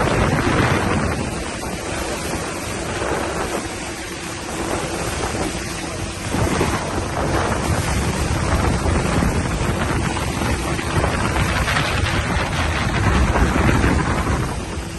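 Speedboat under way at speed: wind buffeting the microphone in a heavy rumble over the steady drone of the engine and the rush of water.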